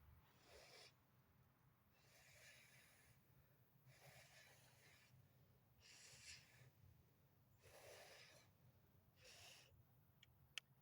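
Faint, slow breathing close to the microphone, soft breaths following one another about every one and a half to two seconds. A single small click near the end.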